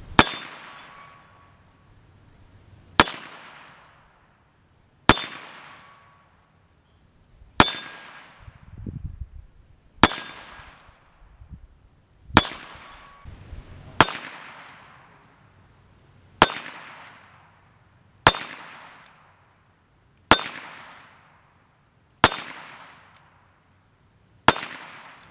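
Twelve .22 LR single-action revolver shots, about two seconds apart. Each one hits a steel swinger target, which rings with a sharp clang that fades away.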